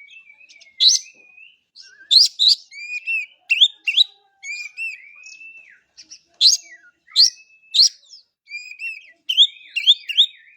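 Oriental magpie-robin (kacer) singing: loud, sharp rising whistles repeated every second or so, between slurred whistled phrases.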